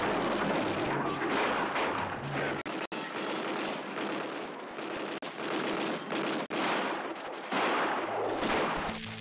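Western-film battle soundtrack: dense, continuous gunfire with many overlapping shots. Music comes in just before the end.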